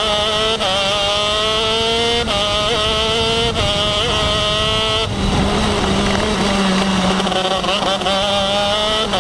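KZ2 shifter kart's 125cc two-stroke engine at racing speed, heard from on board: the revs climb and drop sharply three times in the first few seconds as it is shifted up, then fall away about five seconds in through a corner and climb again near the end. Wind noise runs under it.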